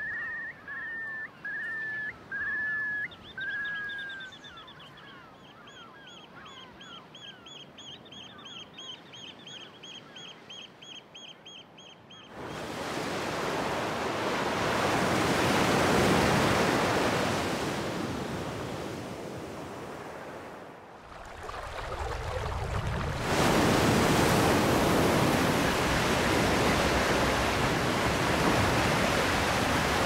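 A bird calling over quiet shore ambience: a short run of falling calls, then a fast repeated call of about three notes a second. About twelve seconds in this gives way to loud surf, waves breaking and washing, with a brief lull about twenty seconds in before the next wave.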